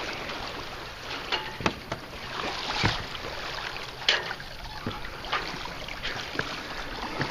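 Wind and water noise aboard a sailboat under way, with scattered knocks and taps on deck; the sharpest come about two, three and four seconds in.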